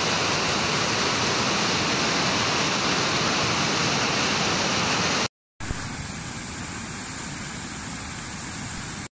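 Steady rushing of a muddy flash-flood torrent. Just past halfway the sound cuts out for a moment, then a somewhat quieter, steady rush of floodwater follows.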